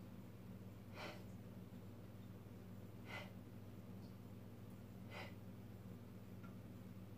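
A woman's short breaths out, three about two seconds apart, one on each pull of a single-arm row, over a steady low hum.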